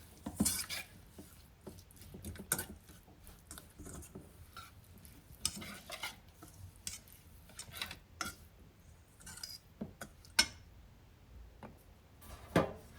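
A spoon stirring a thick sauce of oil, soy sauce, lemon, garlic and spices in a bowl, with irregular clinks and scrapes against the bowl.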